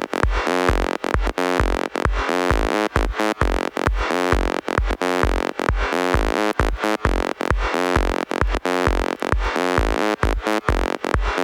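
Electronic dance music: a steady four-on-the-floor kick drum, a little over two beats a second, with pulsing synthesizer chords on each beat.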